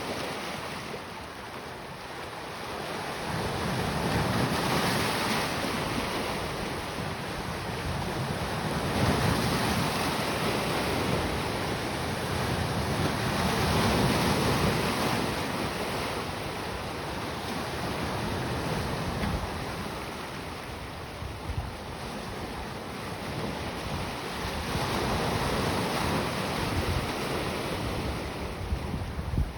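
Sea waves washing in and breaking on the shore, swelling and easing every few seconds, with wind buffeting the microphone.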